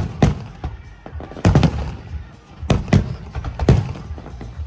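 Fireworks display: a rapid run of loud bangs from bursting shells, about nine in all, often two or three in quick succession, each followed by a low rumble.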